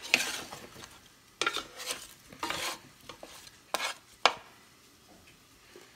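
Wooden spoon scraping and pushing cherry tomatoes in olive oil and garlic around a square pan, in several short strokes. There is a sharp knock a little after four seconds in.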